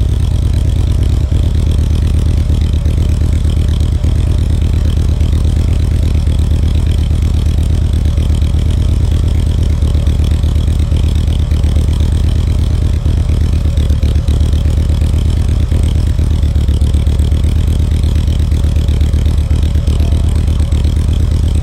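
A loud, low, distorted electronic hum, steady in pitch with a fast buzzing pulse in it: the repeated humming sound effect.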